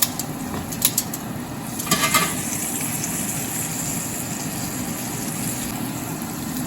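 Flour-coated chicken pieces sizzling in hot oil in a frying pan: a steady hiss, with a few light clicks in the first second and a brief louder burst of sizzling about two seconds in.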